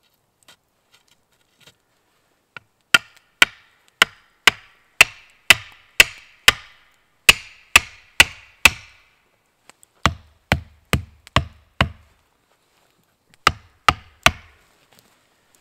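Repeated sharp blows of an axe on wood, about two a second. A run of about a dozen knocks starts about three seconds in, five heavier, duller ones follow, and three more come near the end.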